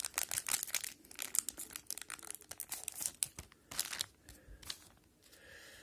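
Wrapper of an O-Pee-Chee hockey card pack being torn open and crinkled, a dense run of crackles, then the cards handled with a few soft clicks as it quietens about four seconds in.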